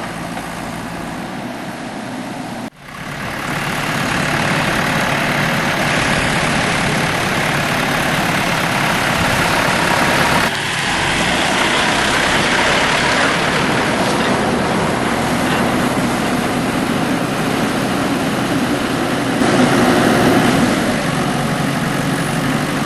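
Heavy machinery engines running, across several clips cut together: the sound changes abruptly about three, ten and nineteen seconds in.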